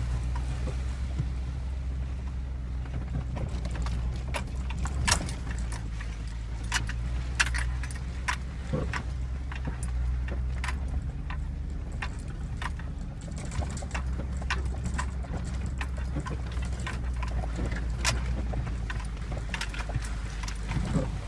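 GMC Sierra pickup's 5.3-litre V8 running steadily at low revs, heard from inside the cab, with frequent sharp clicks and rattles from loose items and the truck's body.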